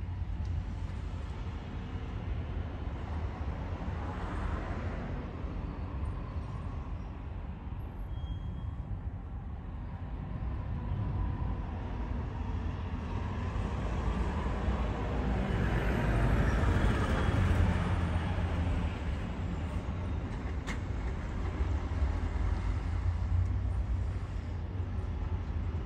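Outdoor waterside ambience: a steady low rumble with traffic in the background. A little past the middle, one vehicle passes, swelling up and then fading away.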